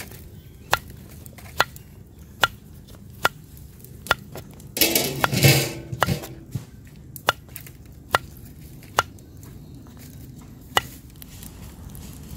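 A knife chopping vegetables on a board in slow, regular strokes, a little under one a second. About five seconds in there is a louder rustling clatter lasting about a second.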